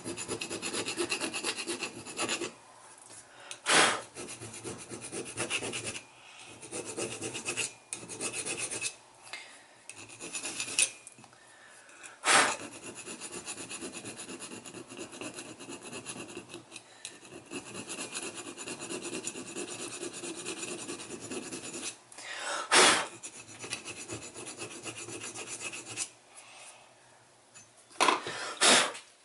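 Hand file rasping back and forth across a small cast-metal TBI throttle body part, taking off excess casting flash. The strokes come in runs of quick rasping with short pauses between them, broken by a few sharp knocks on the bench.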